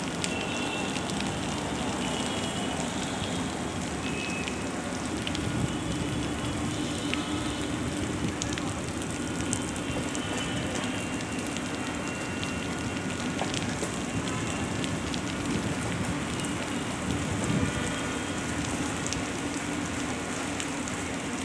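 Heavy rain falling steadily on trees and a waterlogged turf ground, an even hiss with no let-up.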